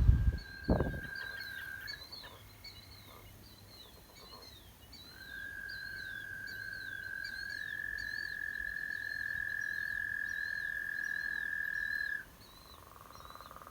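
A frog calling with a long, steady, high trill. A short trill comes first, then one trill of about seven seconds that steps up slightly in pitch partway through. Birds chirp faintly throughout, and another, lower trill starts near the end.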